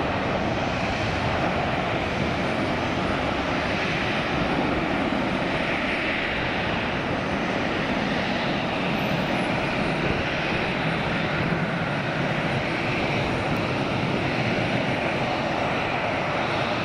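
Boeing 767-400ER's twin General Electric CF6-80C2 turbofans at takeoff thrust as the airliner lifts off and climbs away: a steady, loud jet engine noise.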